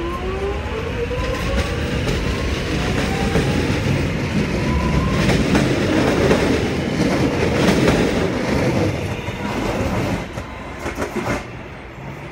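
A train gathering speed past the platform, with a whine that rises in pitch over the first five seconds. Then a loud rumble with wheels clicking over rail joints, which drops off sharply about eleven seconds in.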